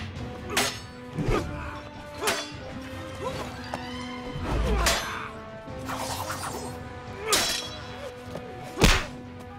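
Fight-scene sound effects of a staff and blade clashing: a string of sharp hits and clangs, a heavy low thud about halfway, and the loudest strike near the end, over film score with long held notes.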